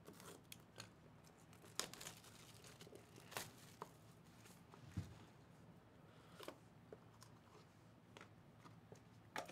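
Faint tearing and crinkling of shrink wrap being cut and peeled off a sealed trading-card hobby box, then scattered light clicks and taps as the cardboard box is opened and a plastic card case is handled. A soft thump about five seconds in.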